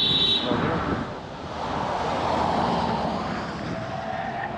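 Street traffic: a motor vehicle passes close, its noise swelling for a couple of seconds and then fading. It opens with a brief high-pitched squeal.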